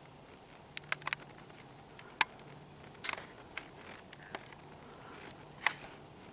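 Irregular sharp clicks and taps, about nine of them, over a faint steady low hum.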